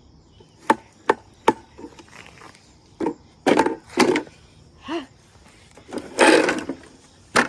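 A series of sharp, irregularly spaced knocks and clacks, with a longer, louder rustling scrape about six seconds in.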